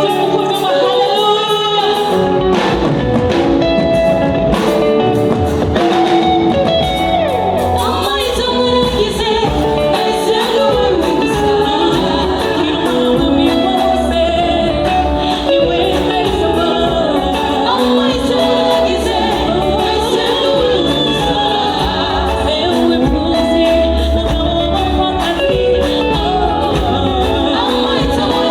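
Gospel song: a woman singing a melody over instrumental backing with guitar, a strong bass line from about two seconds in, and percussion.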